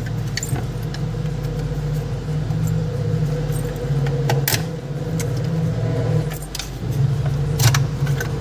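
Scattered sharp plastic clicks and snaps as the casing of a mini Bluetooth speaker is pried open with a tool, two louder snaps about four and a half and seven and a half seconds in, over a steady low hum.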